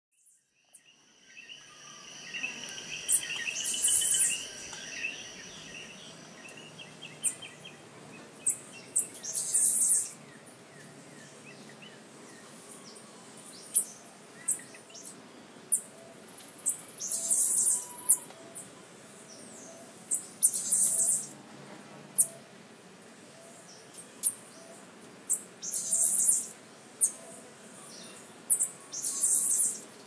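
Rainforest ambience of birds chirping and calling, fading in at the start, with short high-pitched calls recurring every few seconds over a steady background.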